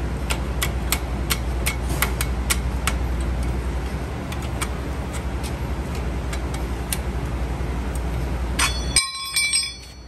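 Hand tools working on a truck's air disc brake caliper: light metallic clicks about three a second over the first three seconds, a few more later, then a metal tool or part clanging and ringing near the end, over a steady low rumble that cuts out just after the ringing starts.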